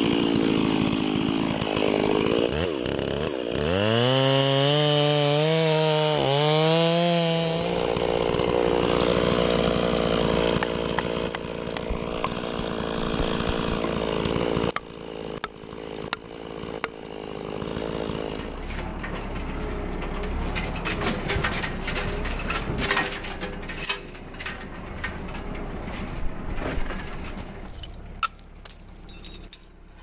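Two-stroke chainsaw cutting into a tree trunk, its engine note dipping under load and climbing back twice in the first eight seconds before running on more quietly. In the second half comes a run of sharp knocks.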